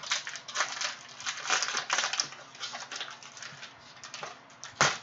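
Plastic cello-pack wrapper of trading cards crinkling and crackling as it is torn open by hand, in irregular crackles, with one sharper crack near the end.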